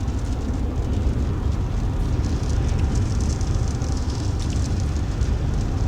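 Heavy rain beating on a moving truck, heard from inside the cab over a steady low road rumble, with a crackly hiss from the drops.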